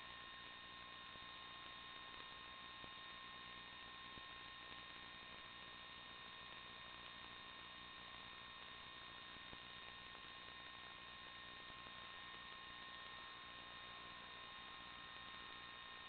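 Near silence: faint steady electrical hum and hiss with a few constant high-pitched whines, unchanging throughout.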